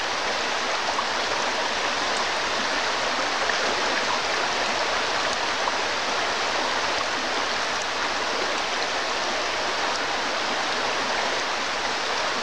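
A shallow, rocky trout stream rushing over stones: a steady, even rush of flowing water.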